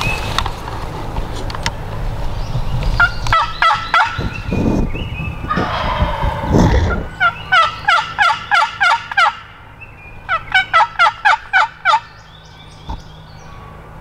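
Turkey calling: several rapid runs of sharp, evenly spaced notes. The two loudest come about halfway through, each lasting about two seconds.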